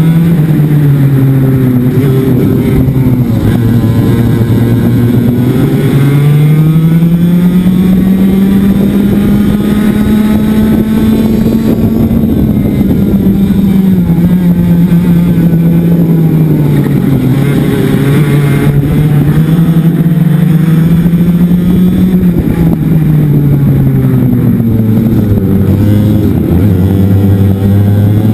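Racing kart engine heard onboard at full race pace, its pitch climbing as it accelerates and falling as it slows for the corners, several times over. The engine note drops to its lowest near the end.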